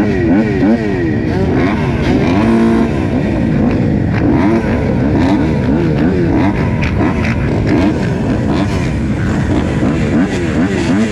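Several motocross bikes revving their engines up and down at the starting gate, the blips overlapping one another, with one engine held at a steady pitch for about a second about two seconds in.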